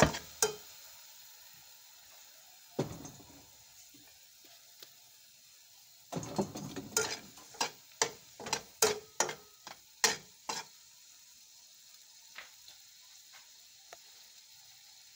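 Garlic sizzling faintly in hot oil in a wok while a spatula stirs it. The spatula knocks once about three seconds in, then scrapes and taps against the pan in a quick run from about six to ten seconds in.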